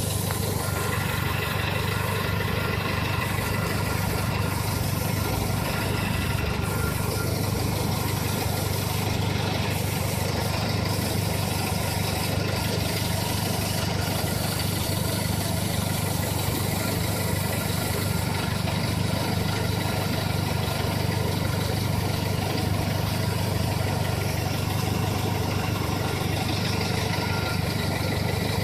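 Luxgen MPV with its engine idling steadily, carrying the abnormal noise of its replacement fuel pump, faint steady high tones over a low even hum. The owner expects this pump to fail soon, like the previous one, which stalled the car while driving.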